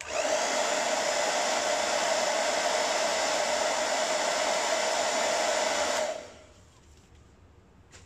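Hand-held hair dryer switched on and running steadily without its concentrator nozzle, blowing air straight down onto wet acrylic pour paint, then switched off about six seconds in and winding down.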